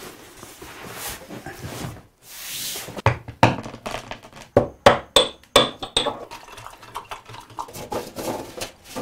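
Large roll of heavy white paper being unrolled and spread on a wooden table, rustling and crackling, with a louder crackle about two seconds in. From about three seconds in comes an irregular run of sharp knocks and a few clinks, as the paper and small objects hit the tabletop, thinning out toward the end.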